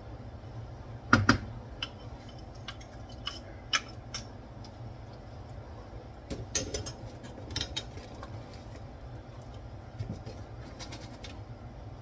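Wooden spoon stirring spaghetti sauce in a stainless steel skillet, with scattered knocks and clicks against the pan. The loudest is a pair of sharp knocks about a second in. A steady low hum runs underneath.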